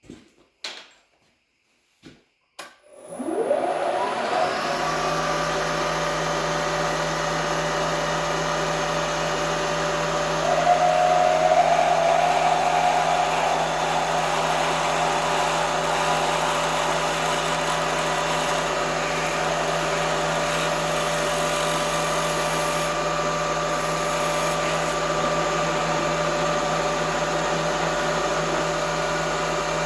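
Two clicks, then about three seconds in a milling machine's spindle starts, its whine rising as it spins up, and runs steadily at high speed. Around ten seconds in it gets louder for a couple of seconds, with a higher tone over the steady running.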